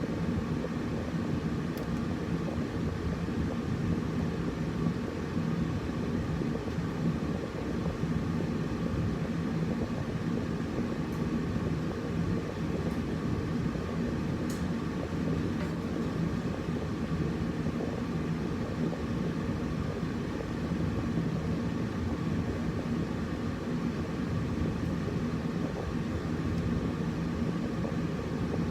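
Air conditioner running: a steady, low whirring rumble with a constant hum under it.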